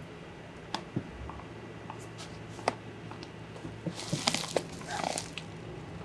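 Scattered light clicks and taps over a low steady hum, with a short stretch of rustling and crinkling about four seconds in: small handling noises.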